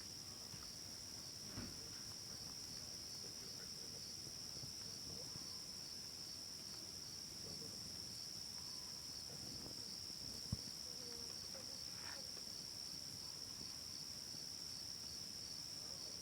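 Faint, steady high-pitched trilling of crickets. There is a soft knock about a second and a half in and a sharper knock near the middle, with faint brief tones coming and going underneath.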